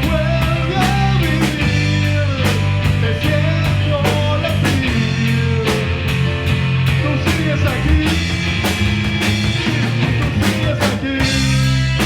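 Rock band playing an instrumental passage live: drum kit keeping a steady beat under bass and electric guitar, with a melody line bending in pitch over it.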